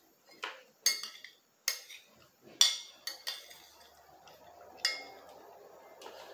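A fork clinking and scraping against a dinner plate while eating, with several sharp clinks spread over the first five seconds.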